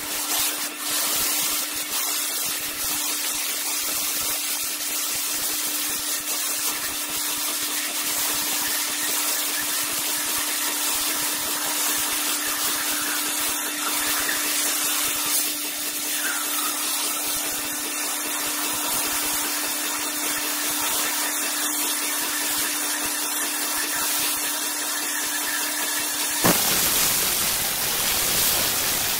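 Flow abrasive waterjet cutting through rock: a steady, loud hiss of the high-pressure jet and spraying water, with a steady hum underneath. Near the end the sound changes abruptly to a fuller rush with more low rumble.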